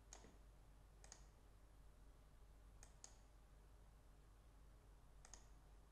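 Faint computer mouse clicks, about six spread over near silence, some in quick pairs.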